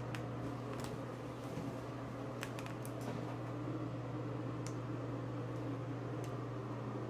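Steady low hum with a faint hiss, broken by a few scattered light clicks.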